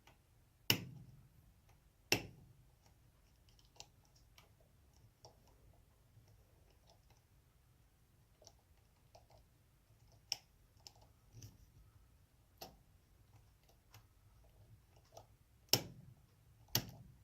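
Tubular lock pick being worked in a tubular lock: scattered faint metal ticks with about five sharper clicks at irregular intervals, as the pick's feelers are manipulated against the pins while picking.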